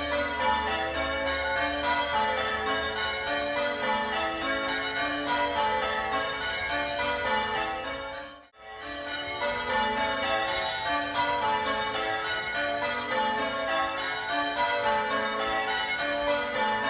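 Gillett & Johnston ring of six church bells (1928, tenor in A) rung in steady succession, one bell after another in an even rhythm, with the treble standing out. The sound cuts out for an instant about halfway through.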